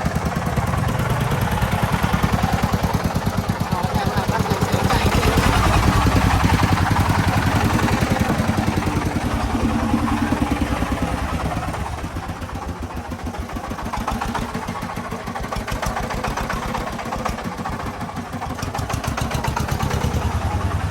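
Single-cylinder diesel engine of a công nông farm truck running under way, a rapid, even chugging. It gets quieter about twelve seconds in.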